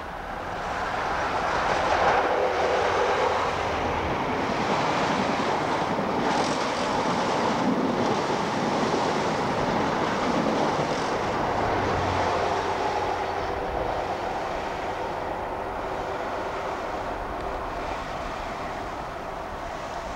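British Rail InterCity 125 (HST) diesel train passing close by. It swells to its loudest about two seconds in as the leading power car goes by, stays loud while the coaches pass, and then fades as it draws away.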